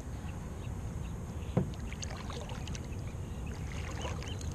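Handling sounds aboard a small fishing kayak over a steady low rumble, with a single knock about a second and a half in.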